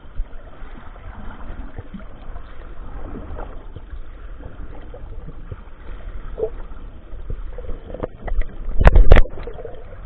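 Muffled underwater noise picked up by a submerged camera: a steady low rumble with scattered small knocks. Near the end comes a short, loud cluster of thumps and clicks.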